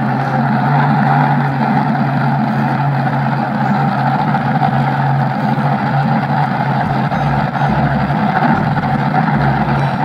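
Engine running steadily, a constant low hum under a rumbling noise, likely a heavy-machinery engine sound effect laid over the toy excavator footage. It starts and cuts off abruptly.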